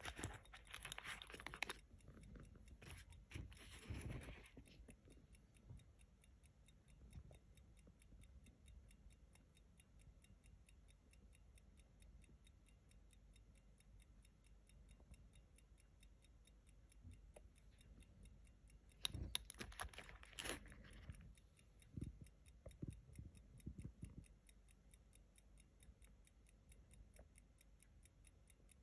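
A J W Benson 'Bank Watch' silver pocket watch (London, 1899–1900) ticking faintly with a rapid, even beat. Brief rustling handling noises come during the first few seconds and again about two-thirds of the way through.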